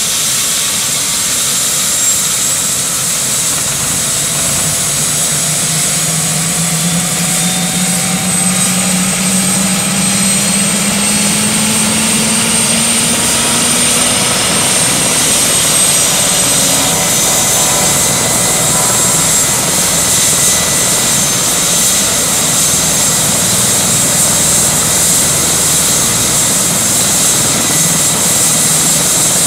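Airbus H145 (EC145 T2) helicopter's twin turboshaft engines and rotors running up on the ground: a steady turbine whine with tones that rise in pitch through the first half while the rotor noise slowly grows louder.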